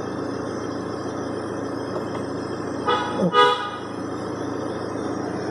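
Audi engine idling steadily at about 1,000 rpm, its low running hum constant throughout. About three seconds in, a car horn gives two short toots.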